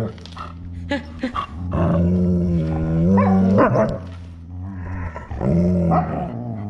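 Malamutes growling and barking in a drawn-out, wavering grumble, agitated and squabbling with each other. The noise is loudest in the middle, eases, then picks up again near the end.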